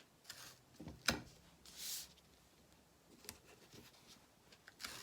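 Light handling sounds: scattered clicks and taps, the loudest about a second in, and a brief rustle near two seconds, as vinyl and tape are handled on an embroidery hoop.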